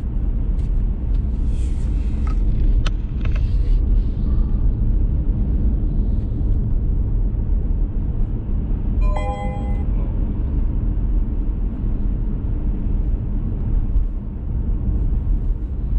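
Steady low rumble of a car's road and engine noise heard from inside the cabin while driving on a wet road, with a few faint clicks early on and one short tone just after nine seconds in.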